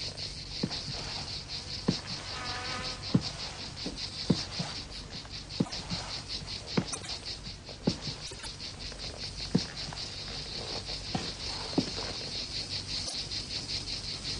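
Steady high-pitched insect chirping in a fast, even pulse, with a sharp click roughly every second.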